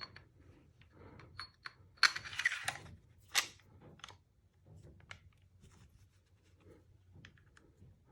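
Metal parts of a Tanfoglio Stock 3 pistol being fitted back together: scattered small clicks, a brief scrape of steel sliding on steel about two seconds in, then a sharp click.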